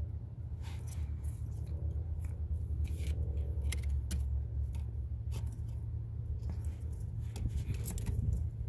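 Small plastic wiring-harness connectors clicking and rattling as an occupant-classification-sensor emulator's plug is handled and pushed into the seat connector. The clicks are short, sharp and irregular, heard over a steady low rumble, and there is no clear latching snap.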